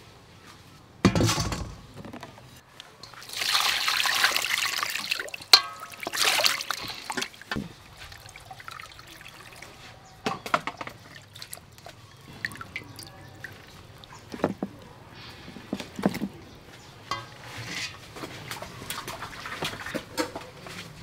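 A thump about a second in, then water poured into a stainless steel bowl for a couple of seconds, followed by scattered splashes and clinks as a whole fish is handled in the wet metal bowl.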